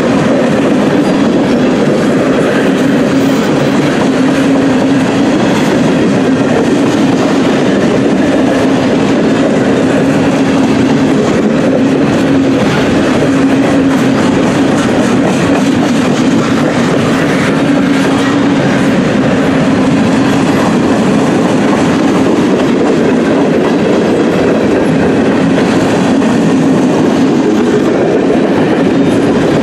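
Loaded freight train boxcars rolling past close by, their steel wheels clicking over the rail joints in a steady loud clatter, with a constant hum underneath.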